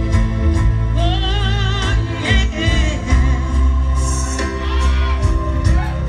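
A song played loud, with a singer holding long notes with a clear vibrato over a heavy, steady bass line, in a gospel style.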